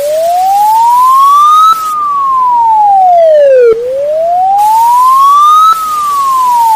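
Emergency alert alarm siren: one clean tone wailing slowly up and down, rising for about two seconds and falling for about two, twice over.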